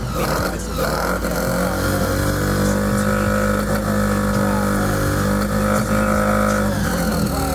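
Bridgeported Mazda rotary engine running at a steady speed after a rebuild, its note barely changing while the carburettor is worked: it is not responding to anything done to it.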